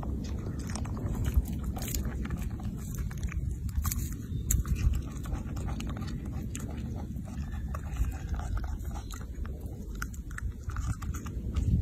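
Baby macaque biting and chewing a small red fruit: many small wet clicks and crunches, over a low steady rumble.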